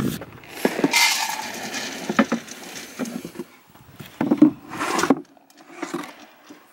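Horse feeding from a bucket hung on a wooden fence post: irregular knocks of the bucket and its metal handle against the wood, with brief rustles of feed.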